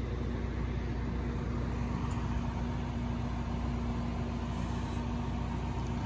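Utility truck engine idling steadily: a constant low hum with one unchanging tone.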